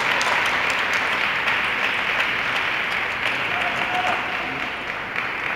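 Crowd applauding after a point is won in a table tennis match: steady clapping that eases slightly toward the end.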